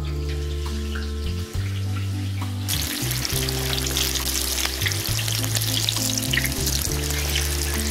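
Battered, potato-stuffed green chillies (mirch bhajji) deep-frying in hot oil: a dense crackling sizzle that starts about a third of the way in. Background music with low held notes plays throughout.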